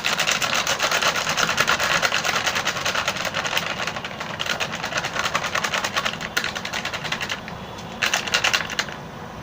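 A spoon stirring and scraping sattu flour in a metal electric kettle: a fast, continuous clatter that stops about seven seconds in and comes back briefly near the end.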